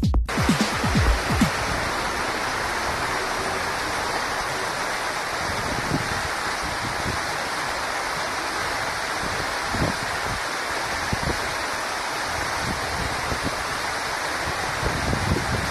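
Waterfall rushing steadily, a dense unbroken roar of falling water, with a few low rumbles of wind on the microphone, mostly near the start.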